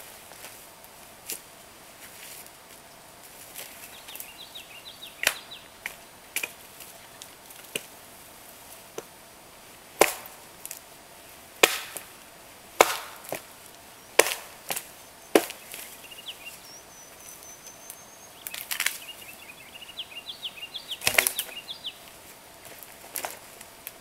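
Axe chopping into dry dead wood on a downed log: a series of sharp, irregularly spaced strikes, thickest in the middle stretch, with a few louder blows among them.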